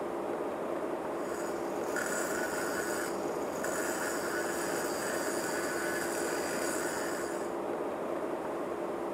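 Hyperbaric welding arc on a pipeline, giving a high hiss with a steady whine that starts about a second in, breaks off briefly around three seconds, and stops about seven and a half seconds in. Under it is a steady hum and hiss of machinery and air in the habitat.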